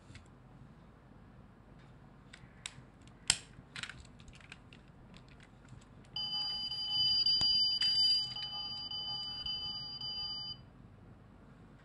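Toy die-cast Lamborghini's electronic sound module giving a steady beeping tone for about four seconds, after a few sharp clicks as the toy's parts are handled.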